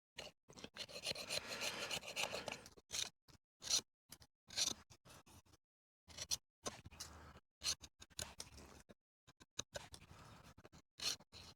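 Kitchen knife shaving and scraping a hardwood stick, in many short, irregular strokes with brief pauses between them.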